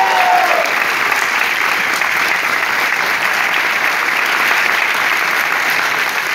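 Applause from the audience and the cast on stage: steady, dense clapping, with a voice briefly heard at the very start.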